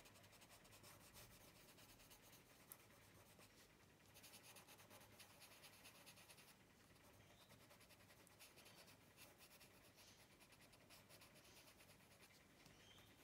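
Faint, rapid scratching of a yellow ochre coloured pencil shading on paper in quick short strokes, with short pauses now and then.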